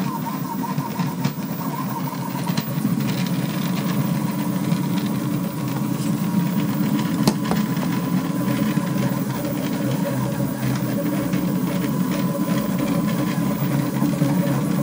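Delta 3D printer printing at high speed: its stepper motors buzz and chatter, the pitch flickering with every quick move, over a steady thin whine.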